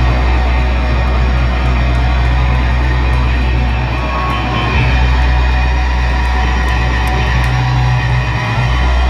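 Punk rock band playing live: loud electric guitars with bass and drums, one continuous wall of sound.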